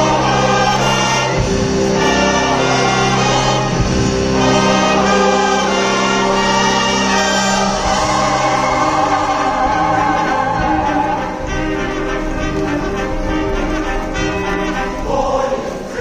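Large show choir singing full-voiced over a live accompanying band. The music eases off a little in the last few seconds.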